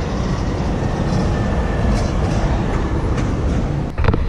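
Steady rumble and hiss of passing road traffic, with a couple of sharp knocks near the end.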